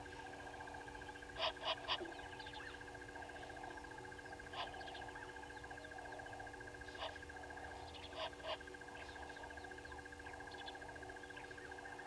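Brown-headed parrots giving short, sharp calls: three in quick succession about a second and a half in, then single calls and a pair later. Under them run a background chorus of birds and a steady pulsing trill.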